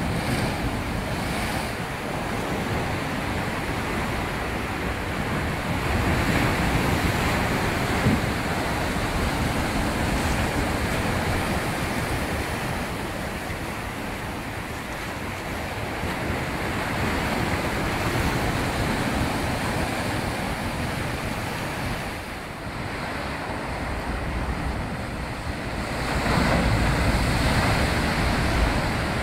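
Rough sea surf crashing and breaking in foam against rocks and a seawall, a continuous wash that swells louder as bigger waves break, about six seconds in and again near the end.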